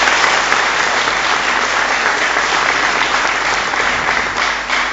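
Audience applauding, a dense clapping that starts to ease off near the end.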